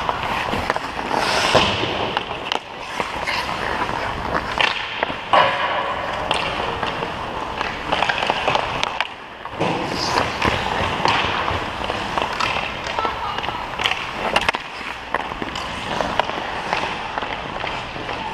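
Ice hockey skates scraping and carving on rink ice, with repeated sharp clacks of hockey sticks striking pucks.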